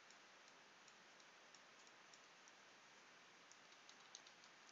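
Near silence with about ten faint, irregular clicks of a computer keyboard and mouse being used.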